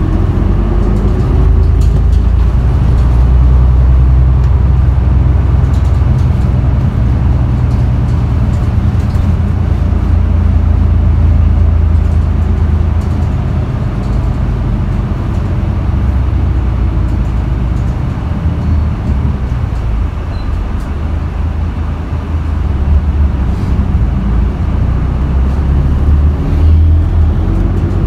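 Isuzu Erga city bus's diesel engine running under way, heard from inside the cabin: a low engine rumble that builds as the bus picks up speed, eases off about two-thirds of the way through, and builds again near the end, with a faint rising whine as it accelerates.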